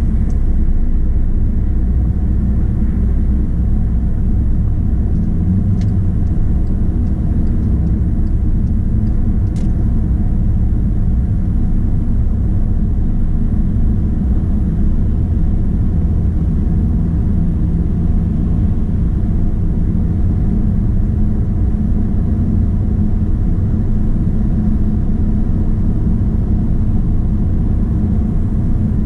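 Steady road noise heard from inside a car cruising on a highway: low tyre roar and engine rumble.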